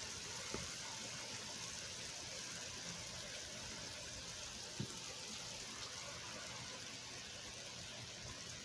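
Heavy rain falling steadily, a constant hiss, with a couple of faint taps, one about half a second in and one about five seconds in.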